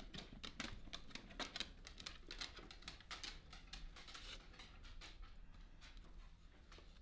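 Faint irregular rustling, crackling and light clicking as potting soil and a vining plant's root ball are handled and settled into a new pot; the sounds thin out toward the end.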